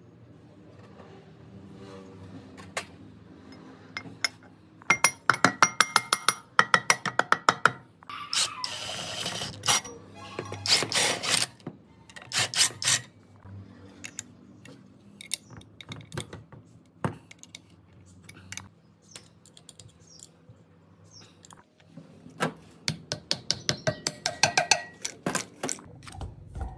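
Metal hand-tool work on metal parts: bursts of rapid, sharp taps and clicks with a ringing tone, some in quick runs of about five a second.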